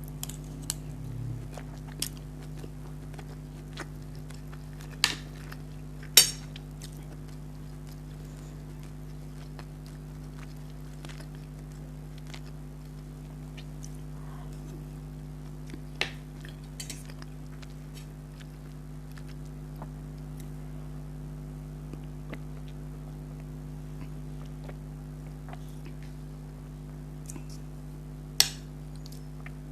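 Eating sounds: quiet chewing with a few sharp clinks of cutlery against a plate, the loudest about six seconds in and another near the end, over a steady low electrical hum.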